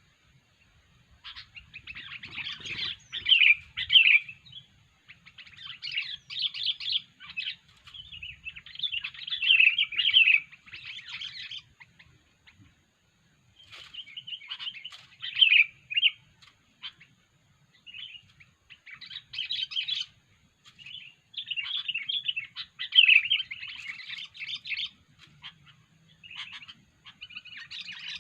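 Sooty-headed bulbul (kutilang) calling: rapid chattering phrases of a second to a few seconds each, repeated with short pauses. It is an unusual-sounding kutilang call of the kind played to lure other bulbuls in.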